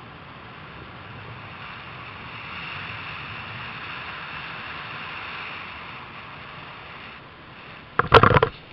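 Steady rushing of air over the microphone of a paraglider's onboard camera on final approach, then about eight seconds in, sudden loud rustling knocks as the pilot touches down in the grass.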